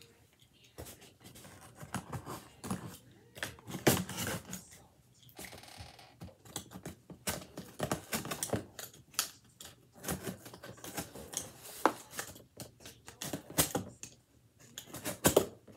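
Cardboard shipping box being opened and its packaging handled: irregular rustling, crinkling and sharp clicks and snaps of cardboard and packing material.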